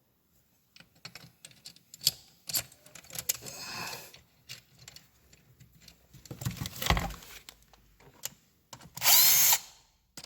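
Scattered clicks and knocks of tools and metal parts, with a heavier knock about two-thirds of the way in. Near the end a cordless drill-driver whirs briefly, spinning up and winding down as it runs a bolt in.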